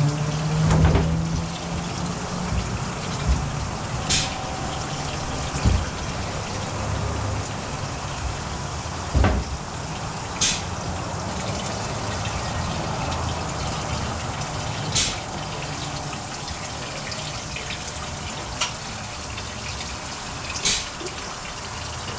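Liquid pouring steadily in an oil-change pit, with four sharp clicks a few seconds apart and a few dull knocks.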